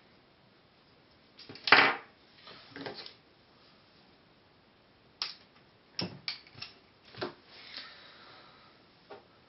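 Small hand tools and parts handled on a wooden workbench: a sharp knock about two seconds in, some rustling, then a string of short clicks and light taps near the middle and one more near the end, as heat-shrink tubing is fitted over wires and cutters are picked up.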